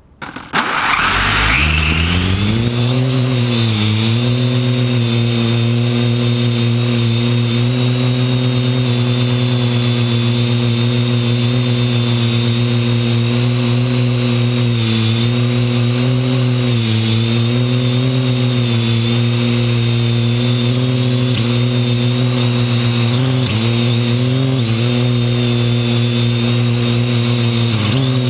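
The Parrot AR.Drone quadcopter's four electric motors and propellers, carrying a GoPro HD camera, spin up about a second in with a rising whine. They then run at a steady buzz with brief dips in pitch now and then as the drone hovers low, heard up close from the camera on the drone.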